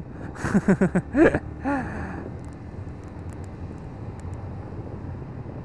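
A Yamaha Vixion R's 155 cc single-cylinder engine running at road speed under wind noise, heard steadily from the rider's position.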